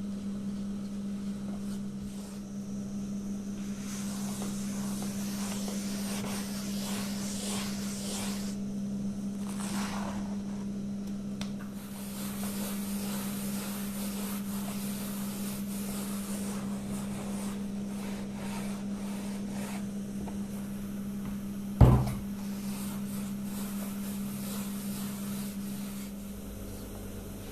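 Hands rubbing and smoothing the surface of a round of semolina bread dough on a wooden board, a soft dry scraping over a steady low hum. Late on, one sharp knock stands out above the rest.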